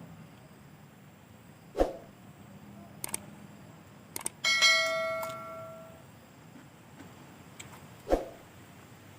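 Eating utensils knocking and clinking against a bowl: a couple of dull knocks, a few small clicks, and one ringing clink in the middle that dies away over about a second and a half.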